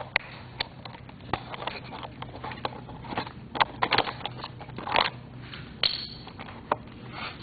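Irregular small clicks and knocks of hands working a part off an RC truck's plastic chassis, with a faint steady hum underneath.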